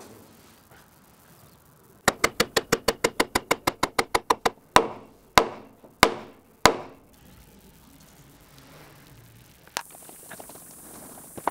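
Hammer blows: a fast run of sharp, ringing strikes at about seven a second for two and a half seconds, then four louder, slower blows about half a second apart.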